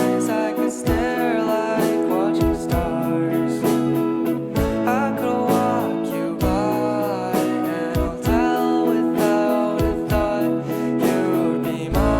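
A song sung by a male voice over guitar accompaniment, with a slow melody and occasional soft beats.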